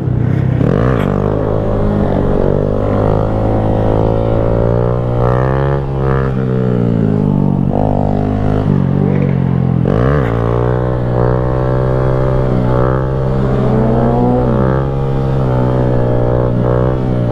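Music built on a steady low drone, its overtones sweeping up and down every few seconds.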